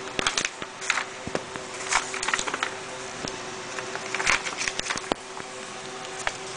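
Plastic packaging and paper rustling and crinkling as they are handled, with scattered light clicks and taps and a faint steady hum underneath.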